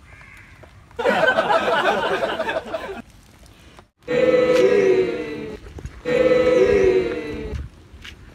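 Edited-in vocal clip: a burst of many voices, then the same short chanted phrase played twice.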